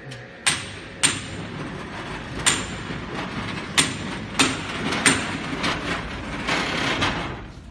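Worktable of a vacuum membrane press rolling out along its rails: a steady rumble with sharp metal clunks at irregular intervals, swelling just before it stops near the end.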